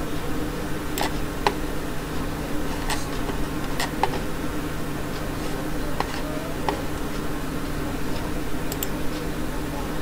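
Computer mouse and keyboard clicks, a few short sharp clicks at irregular intervals, over a steady low hum.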